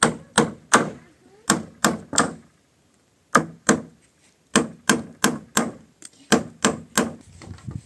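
Hammer blows on wooden roof planks: sharp knocks in runs of two to four, about three a second, with short pauses between runs.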